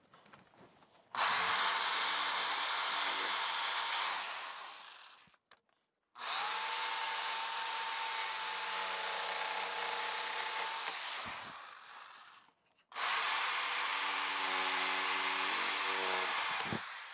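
Black+Decker CurveControl jigsaw cutting in three runs of about four seconds each, enlarging a rectangular opening in a layout fascia. The motor gives a steady whine under a cutting rasp, and each run trails off as the motor spins down.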